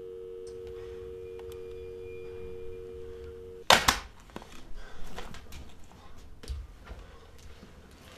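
Telephone dial tone, a steady two-note hum, for about three and a half seconds, cut off by a loud clack as the handset is hung up; a few faint knocks and rustles follow.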